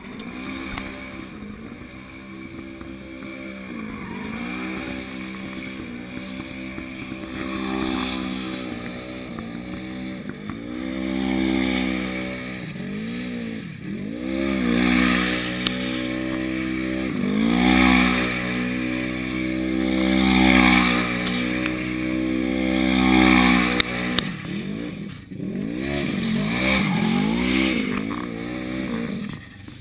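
Side-by-side UTV engine revving up and down again and again during burnout donuts, its wheels spinning on the asphalt. The revs swell and fall every few seconds.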